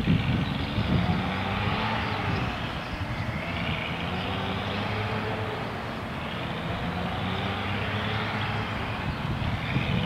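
Motor engine droning steadily, its pitch slowly rising and falling.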